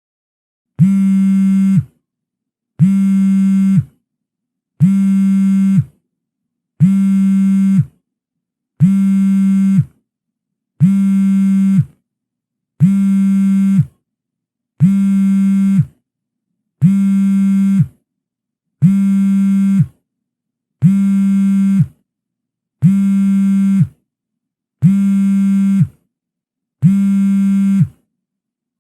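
Mobile phone vibrating: a low, even buzz in pulses about a second long, repeating every two seconds, fourteen times.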